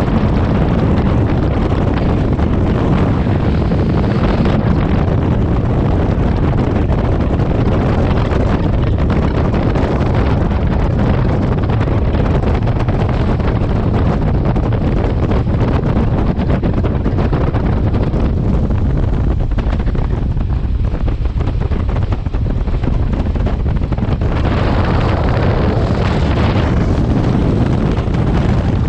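Heavy wind buffeting the microphone held outside a moving Class S11 diesel multiple unit, over the train's steady running noise. The rush grows brighter for a few seconds near the start and again near the end.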